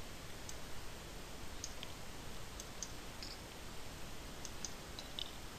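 A few light, sharp computer clicks at irregular moments, about nine in all, over a faint steady hiss.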